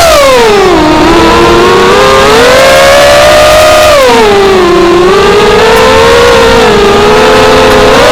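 FPV racing quadcopter's motors whining loudly, the pitch dropping and climbing again several times with the throttle.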